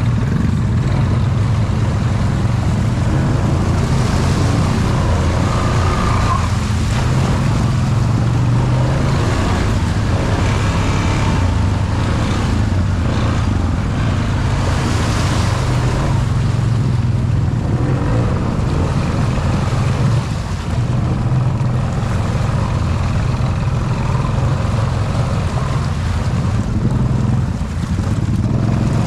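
Honda Foreman 520 ATV engine running steadily, with the rushing noise of mud and water around it.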